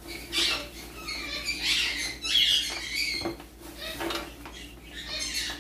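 Pet parrots, conures and a ringneck parakeet, squawking and chirping in repeated short, high-pitched calls, with a light knock about three seconds in.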